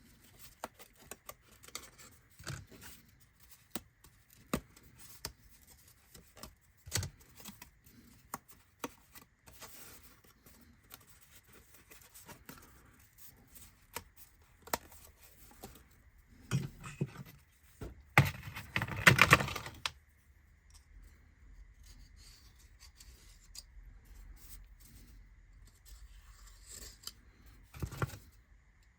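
Small clicks, taps and scratches of laser-cut kit parts being pushed out of their sheet and handled on a workbench, with a louder scrape of about two seconds a little past the middle.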